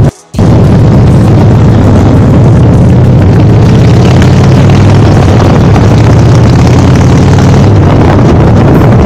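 Motorcycle engine running steadily under a dense rush of wind noise, after a split-second dropout at the very start.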